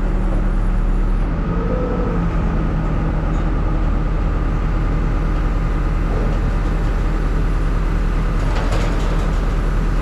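HEPCO HLB95B backhoe loader's diesel engine idling steadily, heard from the operator's seat. There is a brief clatter about eight and a half seconds in.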